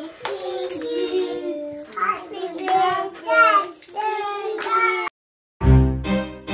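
Young children singing in high voices. The singing cuts off about five seconds in, and after a brief silence music with a heavy bass beat starts.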